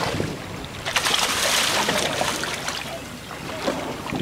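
Sea water washing along a fishing boat's hull, with wind on the microphone; the wash grows louder and hissier about a second in, then eases.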